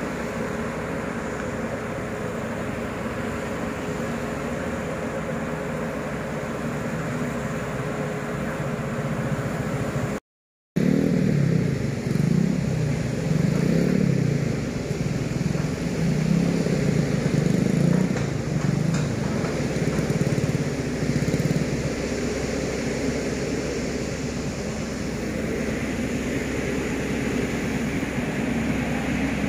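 Steady hum of engines and road traffic, then, after a short break in the sound, a nearby excavator's diesel engine running and revving up and down again and again as it works its arm. It settles to a steadier, quieter run toward the end.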